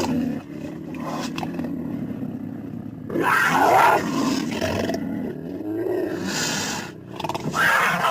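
Creature vocal sound effect built from cougar and domestic cat recordings: a steady low growl, with a loud cat-like yowl about three seconds in and another near the end.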